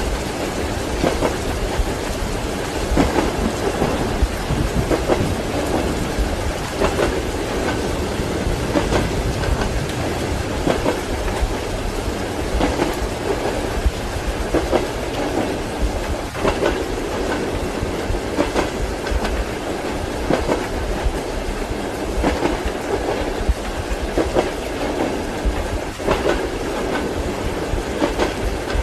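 Train carriage running along the track: a steady low rumble with the wheels clicking over rail joints about once a second, under a steady hiss of rain.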